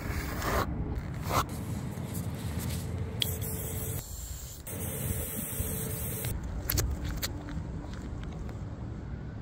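Aerosol spray paint can hissing in several separate bursts, the longest lasting under two seconds, over a steady low rumble.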